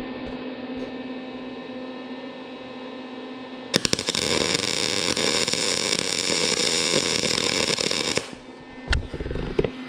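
Electric welding arc on a car's steel side panel, crackling steadily as one weld is laid, starting suddenly a little before four seconds in and stopping about eight seconds in. Before it there is a steady low hum.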